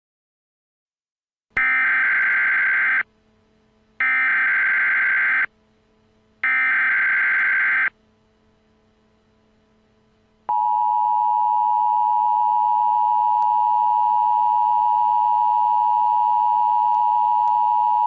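Emergency Alert System SAME header: three bursts of buzzy digital data tones, each about a second and a half long with short gaps between. About ten seconds in, the steady two-tone EAS attention signal starts and holds.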